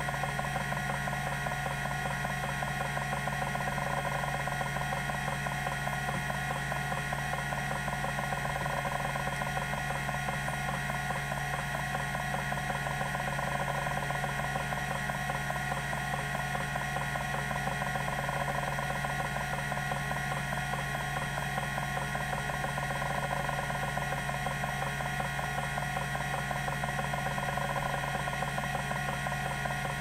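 TEAC SD-510 10 MB MFM hard drive seeking continuously. Its band-driven stepper actuator moves the heads back and forth across the cylinders in rapid steady steps, with steady tones over the running 3600 RPM spindle.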